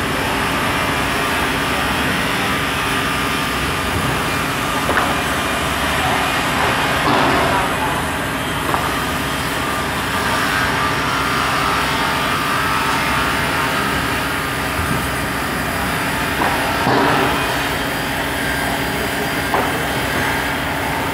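Woodworking saw machines running steadily with a constant hum, broken by a few brief knocks as timber is fed through.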